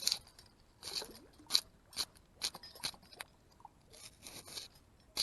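A hand scraper raking rocks in a series of short, irregular scrapes and crunches, pushing them off the pile back into the creek.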